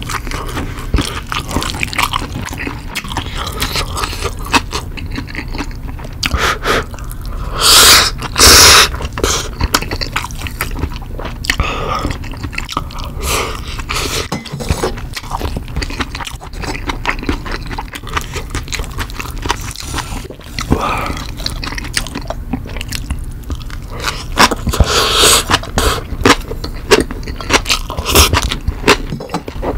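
Close-miked eating sounds: a person chewing spicy green onion kimchi and rice, with a steady run of wet mouth clicks and crackles. Two loud short noisy bursts come about eight seconds in, and another loud stretch about twenty-five seconds in.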